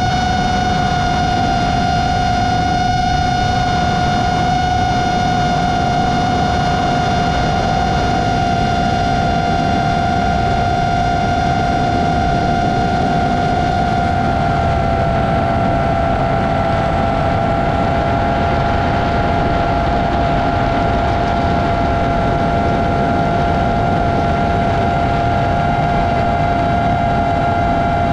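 FPV quadcopter's brushless motors and propellers whining steadily at cruising throttle, one high tone with overtones over a steady rushing noise. Past the halfway mark the tone splits into two close pitches as the motors drift slightly apart.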